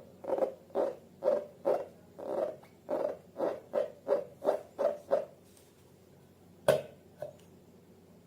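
Slime being squeezed and worked by hand, giving wet squelches at about two to three a second that stop about five seconds in. A single sharp click follows near the end.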